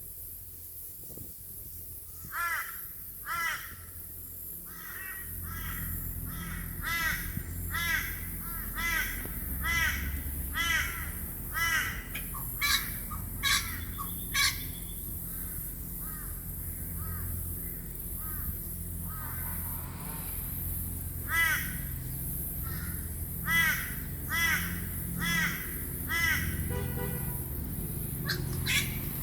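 Crow cawing: a long series of short, harsh calls, each rising and falling, in two bouts with a pause between them. A steady low rumble runs underneath.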